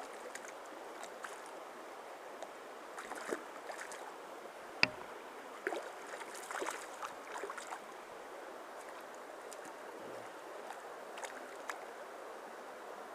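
Steady rush of a mountain stream running over rocks, with scattered small splashes and clicks and one sharp click about five seconds in.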